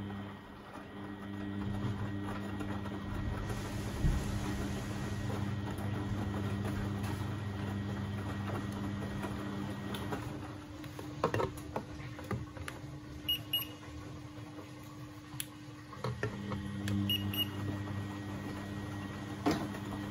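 Beko WMB71642W washing machine running its wash cycle, the drum motor humming steadily. About halfway through the hum stops for several seconds with a few clicks and knocks, then starts again, as the drum pauses between turns.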